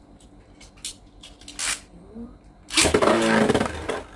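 A few light plastic clicks, then about three seconds in a loud whirring rip of a Beyblade launcher, lasting about a second, as the spinning top is launched into a plastic stadium.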